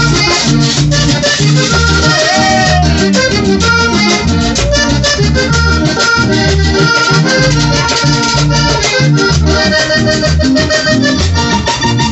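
Accordion-led band playing an instrumental break, the accordion carrying the melody over a steady pulsing bass line and light percussion, with no singing.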